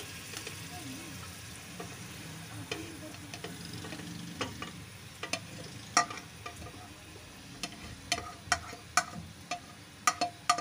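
Chopped tomatoes, onions and ginger-garlic paste being tipped from a plate into an aluminium pressure cooker, with a steady low sizzle of oil in the pot and several sharp clinks against the pot, most of them in the second half.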